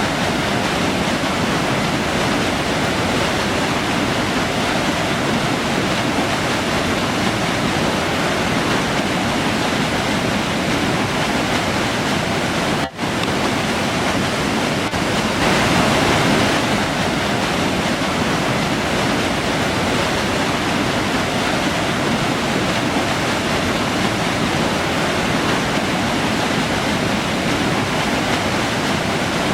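River flowing: a steady, even rush of water, with a brief sudden dropout about thirteen seconds in.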